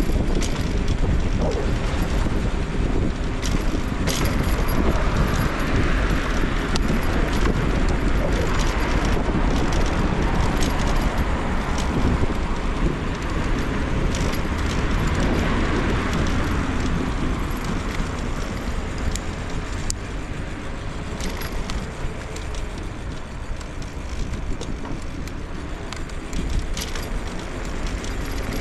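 Riding noise from a scooter moving through city streets: steady wind and road rumble with scattered clicks and rattles from bumps. Traffic noise swells and fades in the middle.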